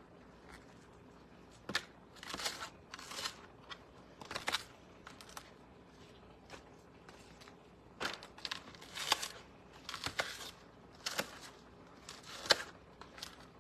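Thawed cabbage leaves being peeled off the head and handled, giving irregular crinkling and tearing rustles with a few sharp snaps.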